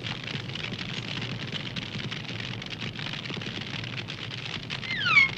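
Steady crackling hiss, like fire crackle or sizzling, with many small snaps. A short falling whistle comes near the end.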